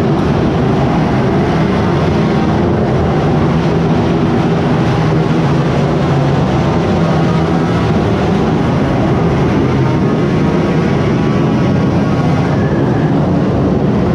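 Steady vehicle running noise, unbroken and heaviest in the low end, heard from a vehicle moving along the street.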